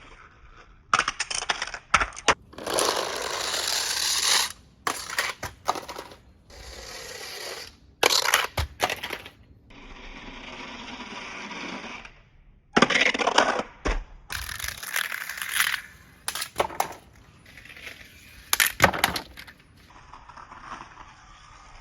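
Toy cars rolling down a slide, each run a rushing rattle lasting a second or two, with sharp clacks and clatters as the cars hit, land and tumble.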